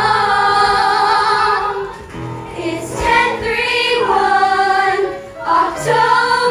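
A group of young performers singing a show tune together in chorus. They hold long notes with a wavering vibrato, with short breaks between phrases about two seconds and five seconds in.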